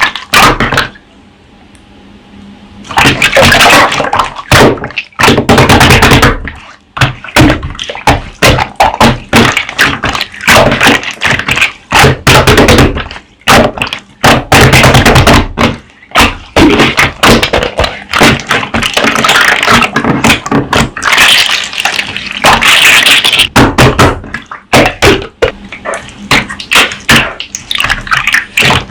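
Slime being squeezed, stretched and pressed by hand: a dense, irregular run of wet clicks, pops and snaps, with a short quieter lull about a second in.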